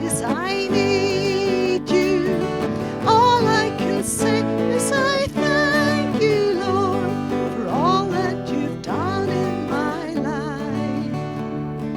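Closing bars of a gospel song: acoustic guitar strumming under a sustained lead melody with vibrato, with no more lyrics sung. It thins out and grows softer near the end.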